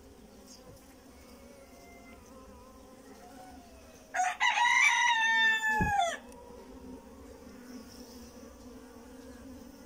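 Honeybees humming steadily from an opened hive. About four seconds in, a rooster crows once, loudly, for about two seconds, its pitch dropping at the end.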